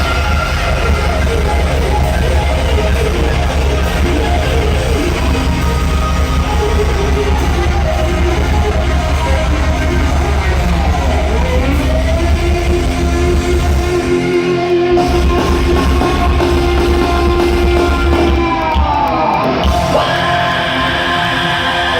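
Heavy metal band playing live at full volume, with distorted guitars, heavy bass and drums, and high yelled vocals. Near the end the bass thins out and the crowd's cheering comes through.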